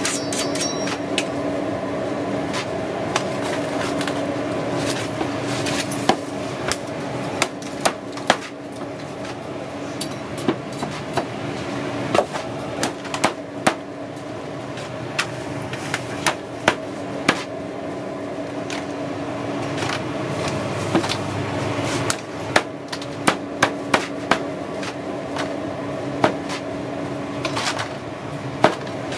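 Machete chopping roast pork on a cutting board: irregular sharp chops, sparse at first and coming thick and fast from about six seconds in, over a steady hum.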